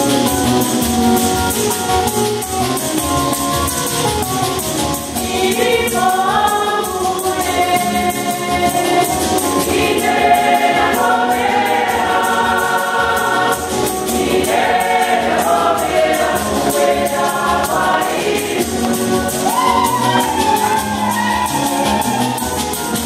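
A choir singing a gospel hymn over a steady percussion beat, the voices rising and falling together.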